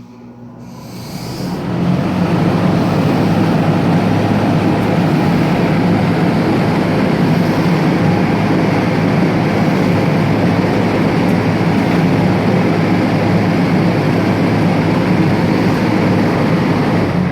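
Vintage International box fan switched to its top 'super' speed. The motor hum and rush of air build up over about two seconds, then run steady and loud.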